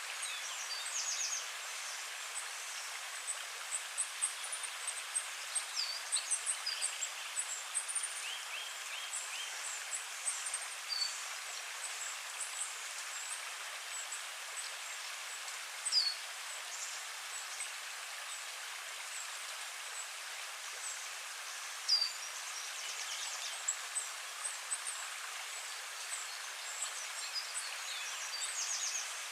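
Recorded forest ambience: many songbirds chirping and trilling over a steady hiss of running stream water, with two sharper, louder chirps in the middle stretch.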